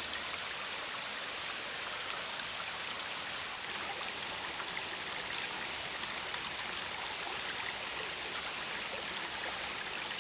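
Steady rain-like hiss, with a faint high hiss pulsing about every two-thirds of a second.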